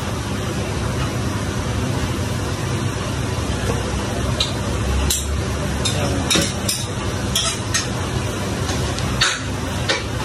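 A spatula stirs chicken and broccoli frying in a wok over a gas flame, over a steady frying noise. From about four seconds in come a run of sharp clinks and scrapes of the spatula against the pan.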